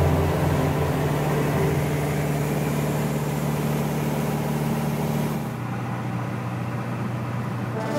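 Steady drone of a single-engine light aircraft's engine and propeller, heard from inside the cabin. About five and a half seconds in, the hiss above it drops away and the drone turns duller.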